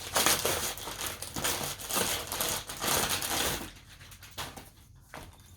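Parcel packaging crinkling and rustling as it is handled and unwrapped. It dies down to quieter handling for the last couple of seconds.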